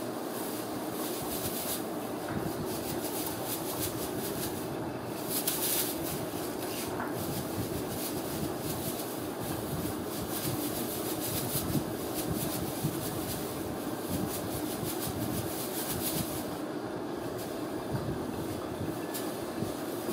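Tinsel wand toy being swished and batted by a kitten: crackly rustling and light clicks over a steady low rumbling noise.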